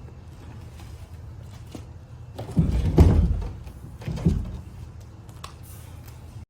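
A small engine running steadily at a low idle, with two heavy metallic thunks, the first and loudest about two and a half seconds in and a shorter one a little past four seconds.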